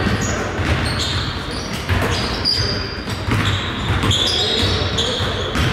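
A basketball bouncing on a gym court during play, a series of irregular thumps and impacts echoing in the hall.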